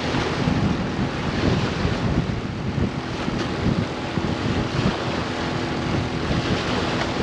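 Wind buffeting the microphone over the wash of waves, a steady rushing noise with gusts in the low end.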